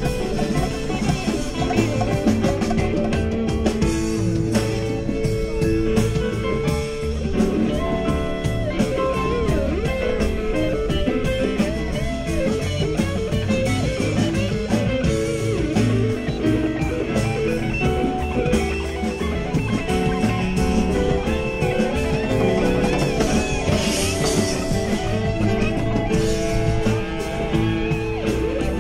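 Live rock band playing an instrumental jam: a lead guitar playing melodic lines over bass and drum kit.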